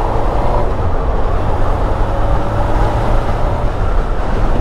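Honda CBF600's four-cylinder engine running under way, with a steady low rumble of wind on the mirror-mounted camera. A faint engine tone climbs slowly as the bike gathers speed.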